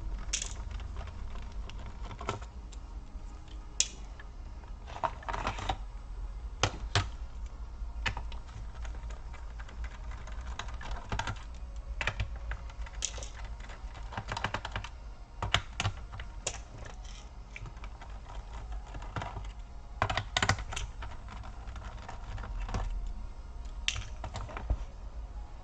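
Irregular light clicks and taps of a small screwdriver and tiny screws against a laptop's plastic base as the back-cover screws are undone, some coming in quick little clusters.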